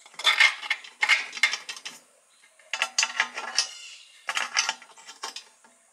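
Amber parking-light bulb being twisted and worked in its metal bayonet socket, clicking and rattling in four short bouts. The socket is not very robust and doesn't hold the bulb well.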